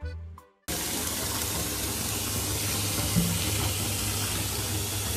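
Background music cuts off suddenly under a second in, then a steady rush of running water.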